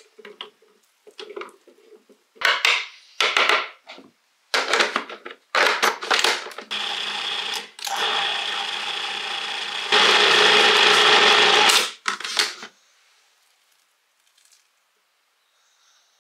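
Food processor pureeing steamed parsnips: several short bursts, then the motor runs steadily for about six seconds, louder over its last two, and stops.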